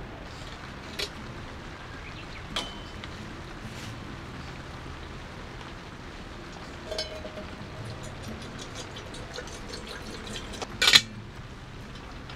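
Water poured from a plastic bottle into a small metal kettle, with light clinks and a sharp metallic clank just before the end. Steady rain patters on the tent throughout.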